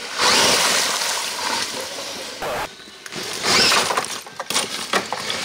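Large electric RC trail truck's tyres and chassis crunching over creek rocks, gravel and sticks as it climbs a log, with twigs snapping and stones clattering in rough bursts, then a run of sharp cracks and clicks near the end.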